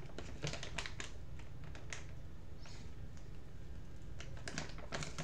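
Computer keyboard being typed on: scattered, irregular key clicks in a cluster near the start and another near the end.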